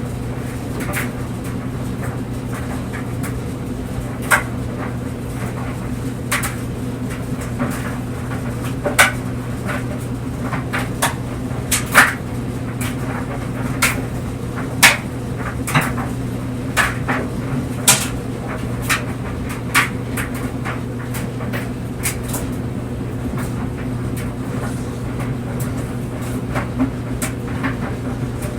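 Clothes dryer running with a steady low hum of its motor and drum, while the tumbling clothes knock and click against the drum at irregular moments.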